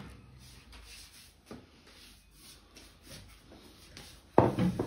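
Quiet handling sounds, light rubbing and a small click, as melted butter is poured from a mug into crepe batter in a bowl. Near the end there is a short, louder thump.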